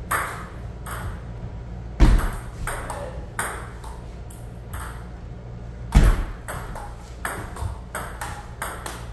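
Table tennis rally: a celluloid ping-pong ball clicking off paddles and the table in a string of sharp ticks, about two to three a second. Two heavier thumps come about two and six seconds in.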